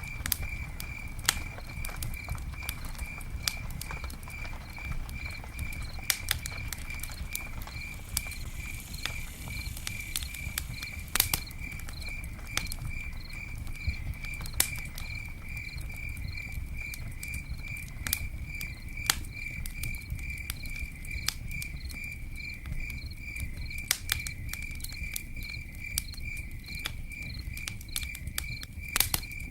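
Campfire burning with a low steady rumble and irregular sharp crackles and pops from the wood, a few louder snaps among them. Behind it an insect, cricket-like, chirps steadily at a high pitch, about two to three chirps a second.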